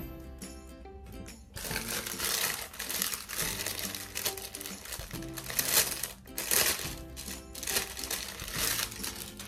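Clear plastic garment bag crinkling as it is handled and opened, starting about a second and a half in. Background music plays throughout.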